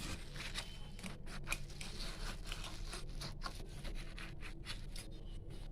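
Light, irregular scraping and clicking of a utensil against a bowl as a block of steamed egg is loosened and turned out onto a plate.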